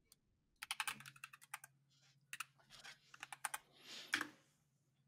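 Computer keyboard typing in two quick runs of keystrokes, with a short soft rush of noise near the end.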